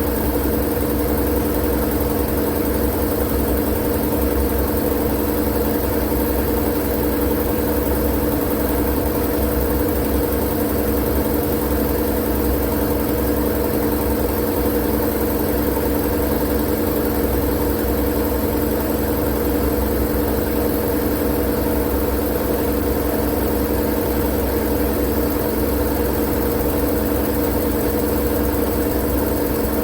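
Steady, unchanging machine hum: a low rumble with a few fixed droning tones under a hiss, like a motor or engine running at a constant speed.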